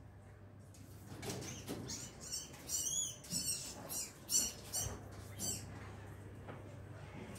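Caged small animals giving a run of short, high-pitched squeaks, about two or three a second for some three seconds.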